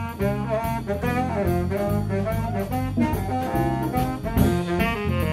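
Jazz ensemble playing, with a baritone saxophone and a tenor saxophone standing to play a melodic line over bass and drums.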